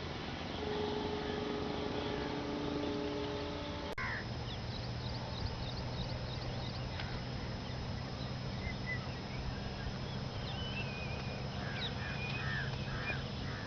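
Birds chirping and calling, the calls coming more often near the end, over a steady low hum. A steady droning sound of several held tones fills the first few seconds and stops abruptly about four seconds in.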